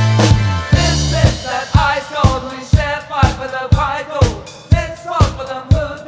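A band playing: a held chord at the start, then a steady drum beat of about two beats a second under a wavering melody line.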